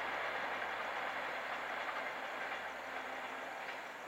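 Electric-hauled express passenger train running away into the distance, its steady rumble slowly fading.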